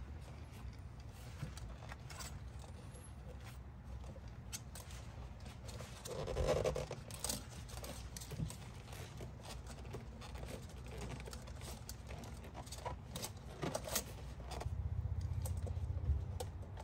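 Gloved hands handling an engine's air-intake tube and its couplers and clamps: scattered light clicks, taps and rubbing of parts. A louder rub comes about six seconds in, and a low rumble near the end.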